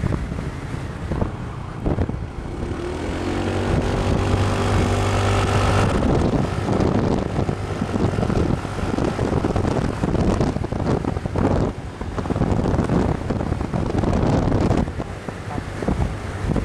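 Wind buffeting the microphone of a moving vehicle over road and engine noise. An engine drone swells in about two and a half seconds in and cuts off about six seconds in.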